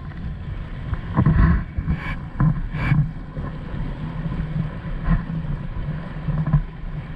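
Water rushing and splashing along an inflatable banana boat under tow, with wind buffeting the microphone and a few sharper splashes about one to three seconds in.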